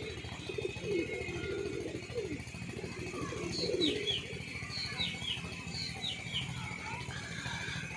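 Pigeons cooing in low, wavering calls, with a small bird chirping short high notes in pairs through the middle.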